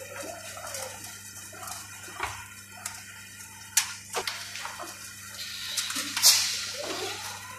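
Roller conveyor carrying wooden pigeon crates, running with a steady low hum and a hissing rattle of rollers, with a few sharp knocks, the loudest about six seconds in.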